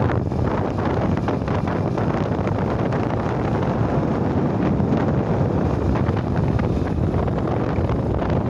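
Steady wind buffeting the microphone of a moving vehicle, with the vehicle's low running and road rumble underneath.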